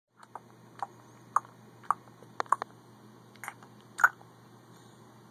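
A run of short, sharp clicks, roughly two a second and sometimes in quick pairs, the loudest one about four seconds in, after which they stop. A faint steady hum runs underneath.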